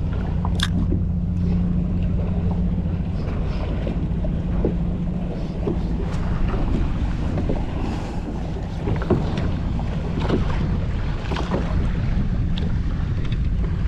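Kayak out on open water: wind on the microphone over a steady low hum, with scattered small clicks and splashes.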